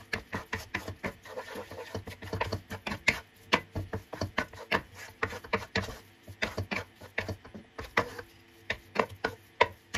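Flour being stirred into the hot butter-and-water mixture for choux pastry: a utensil scraping and knocking against the pan in a quick, irregular run of strokes as the paste comes together.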